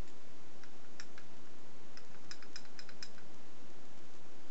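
Light, irregular clicking of an FPU PWWc egg-beater hand drill's blue plastic crown gear being turned slowly by hand against its metal pinion, the clicks bunching up about two to three seconds in.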